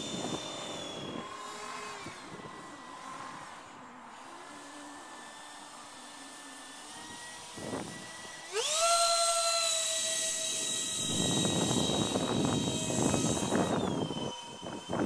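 Twin 65 mm E-flite electric ducted fans, driven by brushless motors, whining as the foam RC jet flies. The pitch drops about a second in and the fans run quieter. About eight and a half seconds in, a louder whine sweeps up in pitch and holds at full throttle. In the later part wind rumbles on the microphone, and near the end the whine falls in pitch as the throttle comes back.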